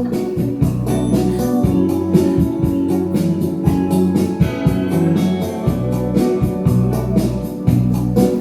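Instrumental intro of a Cantopop ballad backing track: sustained keyboard chords over a bass line with a steady, evenly spaced drum beat.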